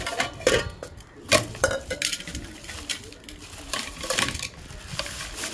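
Thin plastic bag rustling and crinkling as fresh fish are emptied from it into a metal pot, with irregular light knocks and clatters of the pot.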